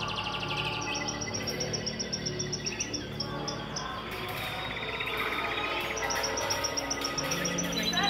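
Recorded canary song from a caged-canary effect display: two long, rapid high trills, one starting about a second in and another near the end, over steady ambient background music.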